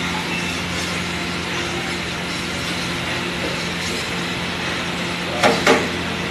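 Steady hiss and low hum of a street-food stall's cooking, with two quick metal clanks near the end as a ladle strikes the big iron pav bhaji griddle (tawa).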